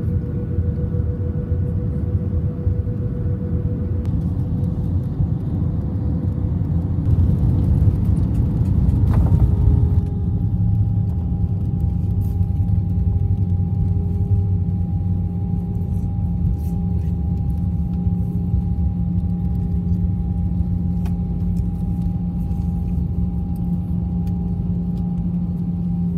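Jet airliner cabin noise from a seat over the wing: a steady rumble of engines and airflow on final approach, growing louder with a short thump about nine seconds in as the wheels touch down. After that it settles into a steadier engine hum with a held whining tone as the plane rolls along the runway.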